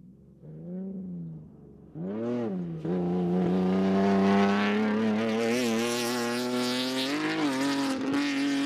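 Mitsubishi Pajero off-road race car's engine revving hard on a dirt course. Two short revs rise and fall, then the engine holds a steady note that climbs slowly under acceleration, with a brief wobble in pitch about seven seconds in.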